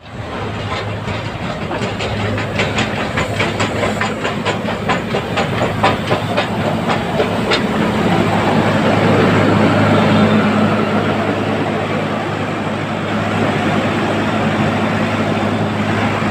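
Nilgiri Mountain Railway X-class steam locomotive moving slowly in, with a quick even beat of about three strokes a second over a rushing noise. The beat stops about halfway through and gives way to a steady hiss of steam with a low hum underneath as the engine stands close by.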